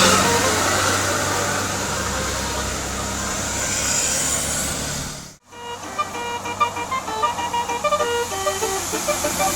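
Bus engine and road noise, which cut out briefly about halfway. Then a bus's multi-tone telolet horn plays a quick tune of short notes stepping up and down in pitch.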